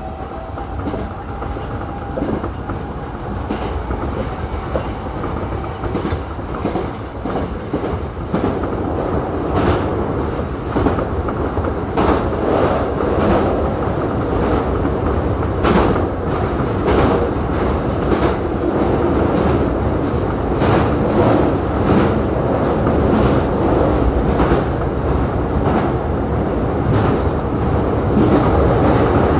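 Hankyu electric train running on the track, its wheels clicking irregularly over rail joints, heard from the driver's cab. The running noise grows gradually louder.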